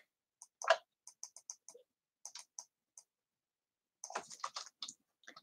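Typing on a computer keyboard: scattered soft key clicks, with a quicker run of keystrokes about four seconds in.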